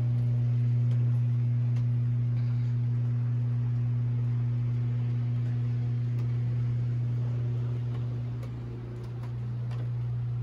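A steady low machine hum at one low pitch, easing briefly about nine seconds in, with a few faint ticks.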